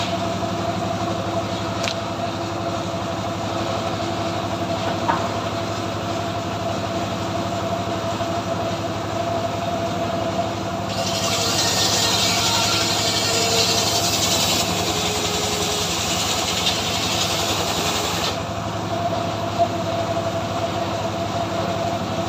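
Engine of a homemade cart-mounted sawmill running steadily. About halfway through, a saw cuts through a log with a loud hiss for about seven seconds, then it drops back to the engine alone.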